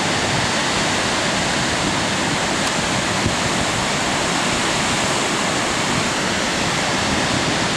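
Faxi waterfall rushing: a steady, even roar of falling water.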